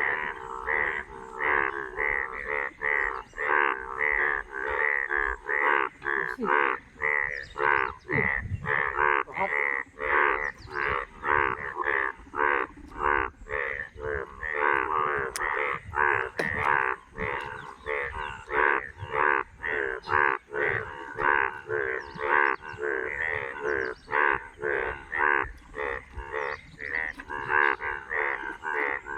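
A chorus of many frogs calling after rain: dense, overlapping calls pulsing at about two a second, without a break.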